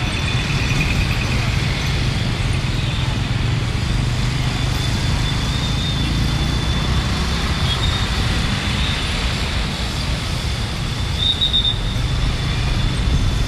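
Steady rumble of busy road traffic (motorcycle, car and bus engines and tyres) heard from a vehicle moving through it.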